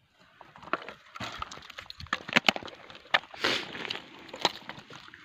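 Handling noises: irregular sharp clicks, cracks and scrapes as a dead hare is moved about on stony ground.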